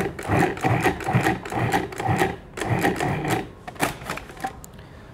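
Food processor pulsed in short repeated bursts, its blade cutting cold cubed butter into flour until the mix is a coarse meal. The pulses stop about four seconds in.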